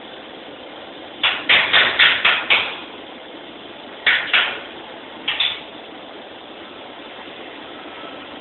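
Hammer blows on metal in a welding workshop: a quick run of about six sharp strikes, then two, then two more, each ringing briefly, over a steady background hum.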